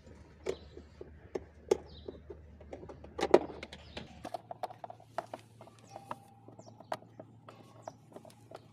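Hard plastic parts of a children's ride-on toy car being handled, pulled apart and worked with a screwdriver: a run of irregular clicks and knocks, loudest in a quick cluster a little past three seconds in.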